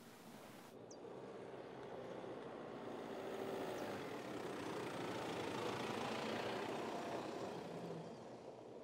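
Mercedes-Benz X-Class pickup driving past on a dirt track, its engine and tyres growing louder for several seconds and fading away near the end.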